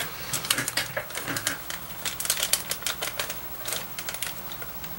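Quick, irregular taps and clicks of fingers and cardstock as paper pieces are handled and pressed onto a scrapbook page, over a faint low hum.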